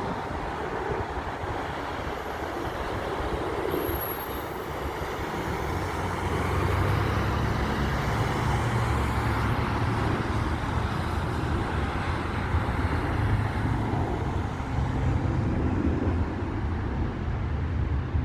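Jet aircraft engines running with a steady, low rumble and hiss, growing louder about six seconds in.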